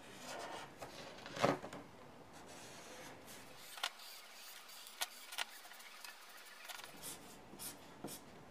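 Felt-tip marker strokes on paper: faint, short scratches and squeaks, with a few small clicks and taps, the loudest about one and a half seconds in.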